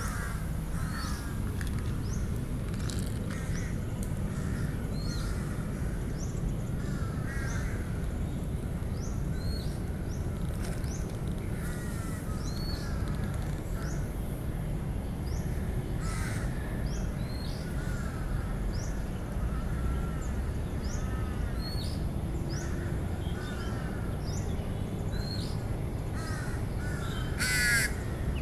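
Outdoor bird calls: crows cawing again and again, with smaller birds giving short rising chirps, over a steady low background rumble. A brief louder call sounds near the end.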